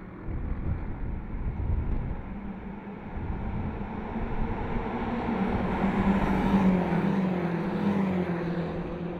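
A group of BMW X6 M SUVs with twin-turbo V8 engines accelerating down a racetrack straight and passing at speed. The engine note builds to its loudest about two-thirds of the way through, then drops in pitch as they go by.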